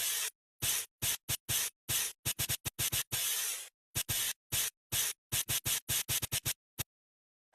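A quick, irregular string of short hissing, scratchy noise bursts that cut in and out abruptly, ending about a second before the end.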